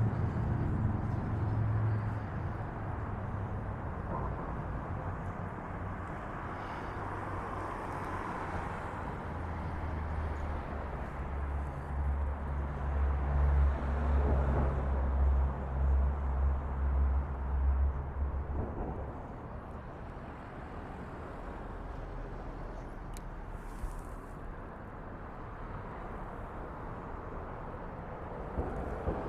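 Outdoor street ambience with an engine humming low and steady, loudest from about ten to nineteen seconds in, then fading back into general traffic noise.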